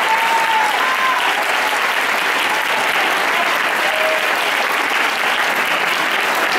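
A crowd applauding steadily, with a few short voices calling out over the clapping.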